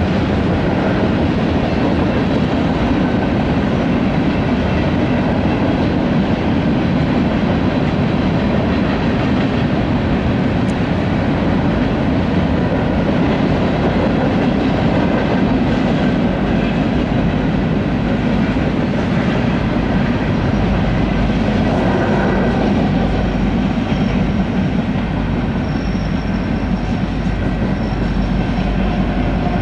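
BNSF freight train's cars rolling past a grade crossing at steady speed, a continuous noise of wheels running on the rails.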